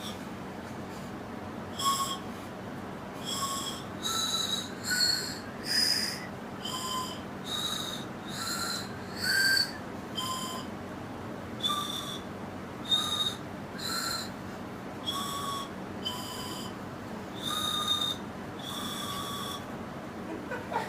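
A person whistling a tune in short, separate notes, a little over one a second, the pitch stepping up and down as a melody.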